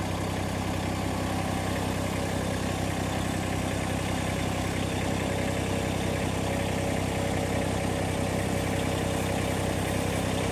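Tractor engine idling steadily. A faint steady whine joins about halfway through.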